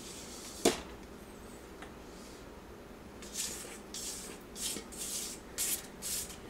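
Spatula scraping wet black powder slurry out of a mixing bowl into a stainless steel saucepan. There is a sharp tap a little under a second in, then a string of short scraping swishes in the second half.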